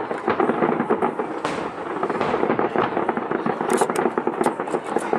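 Aerial firework shells bursting one after another: a dense, continuous run of bangs and crackling, with sharper cracks in the last second and a half.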